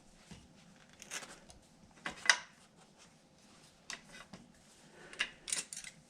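Scattered handling noises: light rustles and clicks, with one sharper click a little over two seconds in and a few more near the end.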